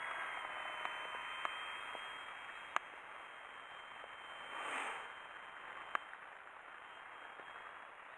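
Faint, steady whir of a small foam-board Sbach 342 RC plane's electric motor and propeller flying at a distance, growing fainter, with a brief louder swell about five seconds in as it passes. Three sharp clicks stand out above it.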